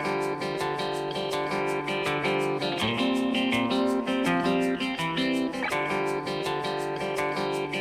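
Background music: plucked guitar playing a steady, rhythmic pattern.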